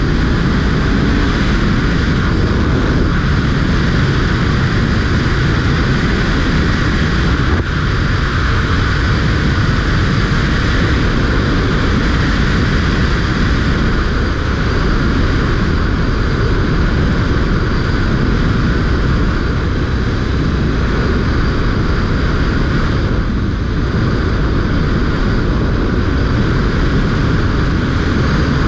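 Motorcycle riding at steady road speed: wind rushing over the camera microphone, with a Honda VFR800Fi's V4 engine running underneath.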